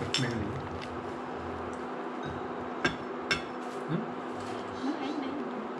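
Spoons and bowls clinking a few times at a meal, over a steady low hum and quiet murmured voices.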